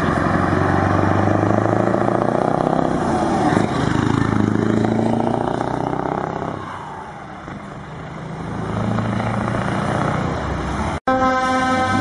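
Heavy truck diesel engines running loud as the trucks drive past close by, with revs rising and falling. After a sudden cut near the end, a truck's air horn sounds with a steady, many-toned blare.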